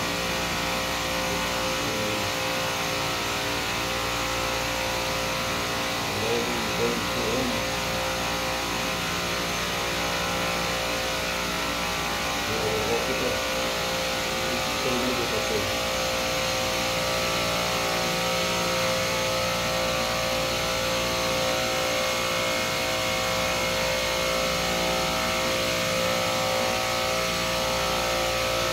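Commercial refrigeration rack compressors running: a loud, steady machine drone with a constant hum.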